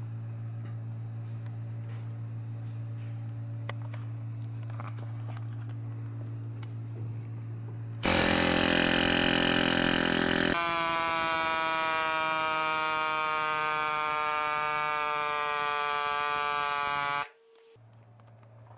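A portable air compressor hums steadily. About eight seconds in, a pneumatic air hammer starts loudly, driving a copper ground rod into the ground through a socket on its tip. Its rattling buzz sinks slightly in pitch and stops abruptly about nine seconds later.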